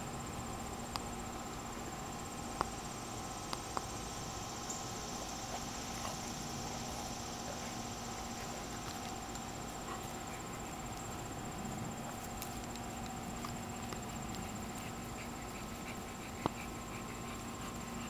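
Insects trilling in a steady, high, unbroken drone, with a few sharp clicks now and then.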